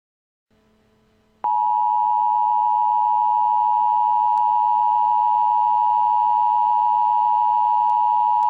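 Emergency Alert System attention signal: a loud, steady electronic two-tone sound just under 1 kHz that starts abruptly about a second and a half in, announcing an incoming alert message.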